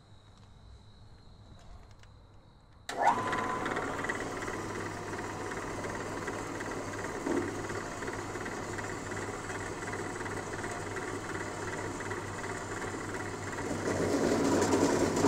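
Horizontal 7x12 metal-cutting bandsaw switched on about three seconds in. It runs steadily as its blade cuts through a heavy steel post, growing a little louder near the end.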